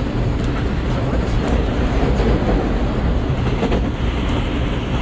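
A JR West 223 series 2500 subseries electric train (unrenovated, Hitachi IGBT drive) running: a steady rumble of wheels on rail with a few faint clicks.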